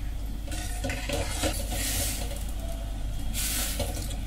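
A steel ladle stirring millet flakes in coconut milk in a steel pan on low heat, making soft scraping swishes, one about two seconds in and another near the end, over a steady low hum.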